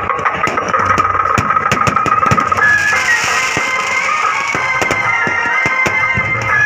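Fireworks crackling and popping in quick irregular snaps, over music with high, held piping notes that step up in pitch about halfway through.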